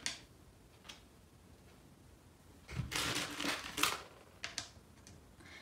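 Light clicks and taps of 3/4-inch metallic mosaic tiles being pressed into place along the edge of a white Lucite birdhouse. A few scattered clicks come first, then a busier run of them around the middle.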